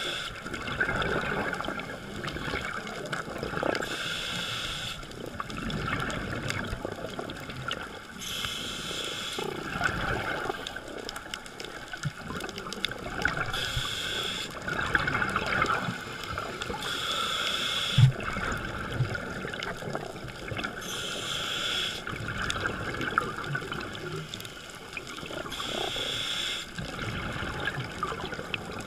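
Scuba diver's regulator breathing underwater: a short hiss about every four to five seconds, with exhaled bubbles between. A single sharp knock about two-thirds of the way through.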